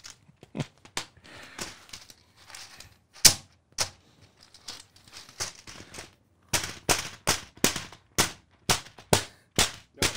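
Buttons on a large 3D-printed print-in-place clicker panel being pressed by hand: sharp plastic clicks, scattered at first with one loud click about three seconds in, then a quicker run of about three clicks a second over the last few seconds.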